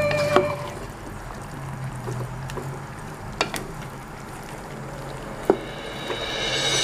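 Wooden spatula stirring chunks of beef and vegetables in a hot pot, with a low sizzle and three sharp knocks of the spatula against the pot.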